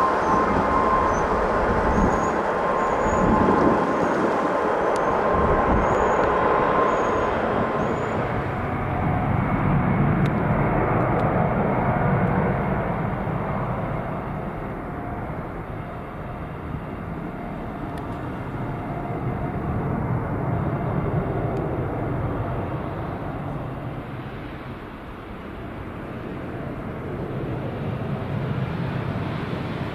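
Jet engines of an Airbus A319 at takeoff thrust: a steady, wide rumbling roar that swells and fades as the aircraft rolls and climbs away. In the first several seconds a steady high whine rides over the rumble, then the sound changes abruptly.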